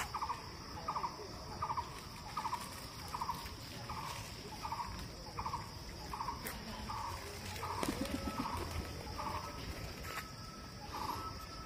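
An unseen bird or animal calling over and over, one short rattling note about every 0.7 seconds, over a steady high insect-like whine. About eight seconds in comes a brief low rolling sound.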